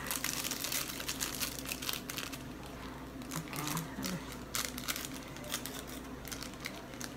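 Small instant-ramen seasoning sachets being torn open and crinkled by hand: dense crackling for the first couple of seconds, then sparser, scattered crinkles and ticks.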